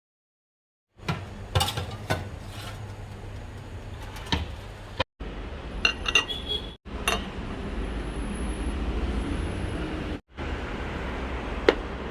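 Dishes and cutlery clinking and knocking now and then over a low steady background rumble, in short stretches that cut off abruptly several times.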